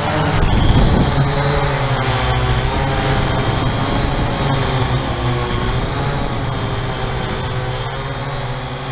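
Syma X8-C quadcopter's motors and propellers whirring close to the on-board camera's microphone, with several pitches wavering up and down as the throttle changes. There is a brief low rumble about a second in, and the sound eases slowly toward the end.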